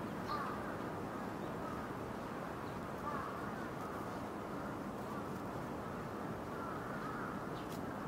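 A crow cawing faintly a few times over a steady background hiss.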